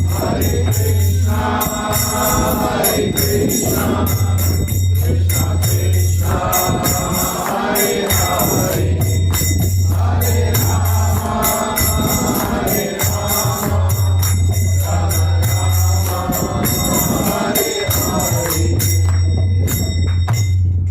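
Group devotional singing (kirtan) with hand cymbals (karatalas) ringing in a steady beat, over a low droning tone that swells and drops every couple of seconds.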